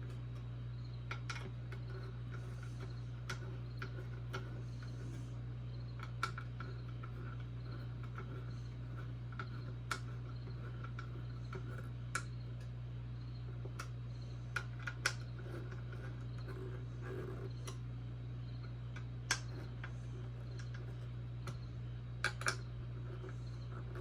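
Small screwdriver and small metal screws clicking and ticking against plastic robot-kit parts as screws are driven and tightened, irregular light clicks every second or two, over a steady low hum.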